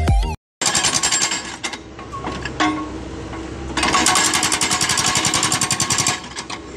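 Excavator-mounted hydraulic breaker hammering hard adobe rock in a fast, even stream of blows over the excavator's engine. The hammering eases off about two seconds in and comes back strong near the middle, then stops shortly before the end.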